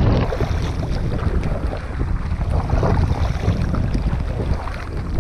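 Wind buffeting the microphone, loud and low, over choppy water, with the splashes of a kayak paddle dipping in and lifting out.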